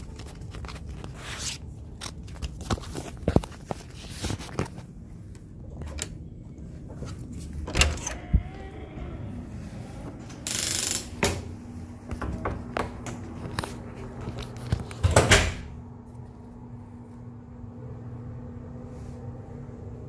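Hotel room door being opened and closed, with handling noises: a string of clicks and knocks, a short hiss about ten seconds in, and the loudest clatter about fifteen seconds in. After that a steady low hum remains.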